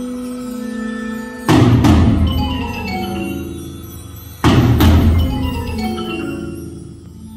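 Percussion ensemble playing: sustained ringing mallet-keyboard and chime tones, then two loud accented strikes about three seconds apart, each a quick pair of hits. Each strike is followed by ringing keyboard notes stepping downward as they fade.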